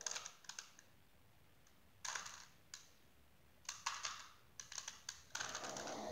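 Ordinary plastic 3×3 Rubik's cube being turned by hand: short bursts of clicking and clacking layer turns, separated by pauses of up to about a second.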